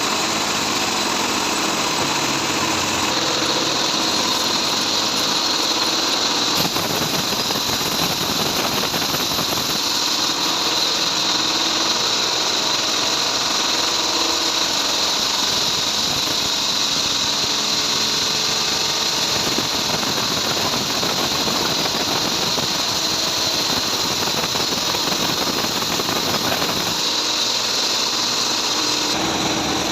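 Sawmill bandsaw running steadily, its blade sawing through a trembesi (rain tree) log.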